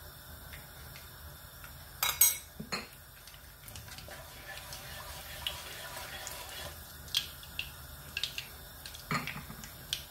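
Wooden spatula stirring mustard seeds in hot oil in a kadhai, knocking against the pan, loudest about two seconds in and again near the end, with a light sizzle of the seeds between.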